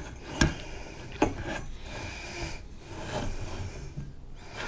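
Steel parts of a Browning 1919 machine gun being handled and fitted into the receiver: two sharp metal clicks in the first second and a half, then light scraping and rubbing of metal on metal.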